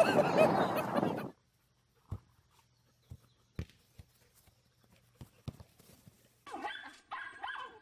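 Loud wind and surf noise on a beach cuts off about a second in. Then come a few scattered soft thuds, like a dog's feet running on grass, and from near the end high-pitched whining cries.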